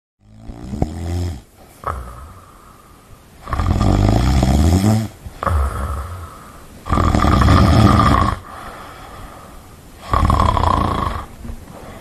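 A person snoring in their sleep: about four loud snores roughly three seconds apart, each lasting a second or more, with quieter breathing between them.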